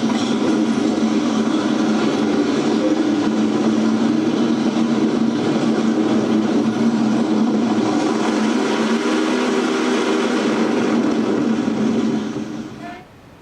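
Steady rumble of many motorcycle engines running together, fading out near the end.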